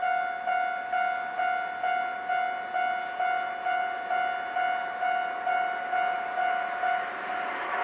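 Japanese railway level crossing alarm bell ringing, a steady repeated clang about twice a second. About seven seconds in, the rushing noise of an approaching train rises over the bell.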